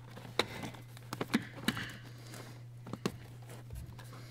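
Scattered light plastic clicks and taps as wiring-harness connector clips for a blower motor are handled and pulled free, over a faint steady low hum.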